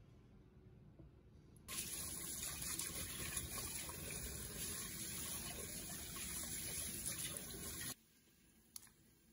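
Kitchen tap running hard into a stainless steel sink while hands rub and rinse pig large intestines under the stream, washing off the starch-and-oil coating used to draw out the slime. The water starts about two seconds in and cuts off abruptly near the end.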